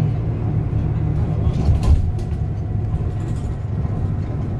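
Steady low rumble of a moving vehicle heard from inside its cabin, with a single knock about two seconds in.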